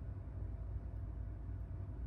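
Room tone: a steady low hum with no distinct events.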